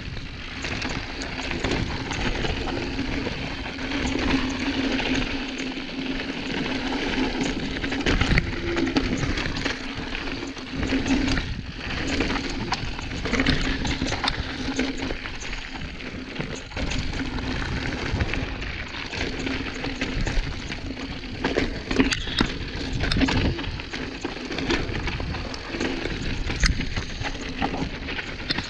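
Mountain bike riding down a rocky scree trail: a continuous grinding rush of tyres over loose stones, broken by frequent sharp rattles and knocks as the bike hits rocks.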